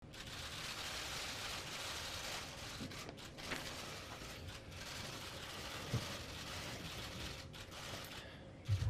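Many press camera shutters firing rapidly and overlapping in a steady clatter of clicks, with a soft thump about six seconds in.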